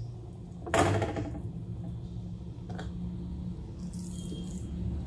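Steady low hum, with one short louder sound about a second in and a faint click near the three-second mark.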